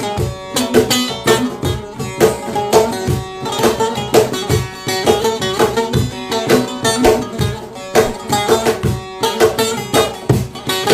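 Instrumental music: fast plucked-string melody over a steady drum beat.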